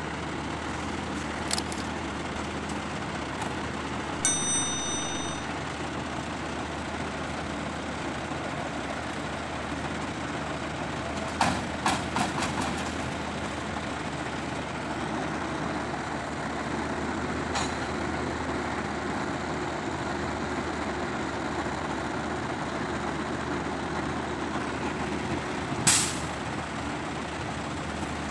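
Diesel tow truck engine idling steadily, with a few sharp metal clanks as the tow gear is rigged to a broken-down bus: a cluster of them about twelve seconds in and the loudest near the end. A short high beep sounds about four seconds in.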